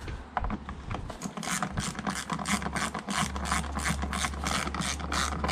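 Hand ratchet wrench clicking in a fast, even run, about four clicks a second, starting about a second in, as bolts are wound back into the pollen filter housing.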